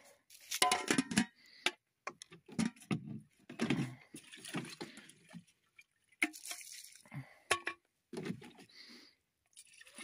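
Water splashing and dripping in irregular bursts.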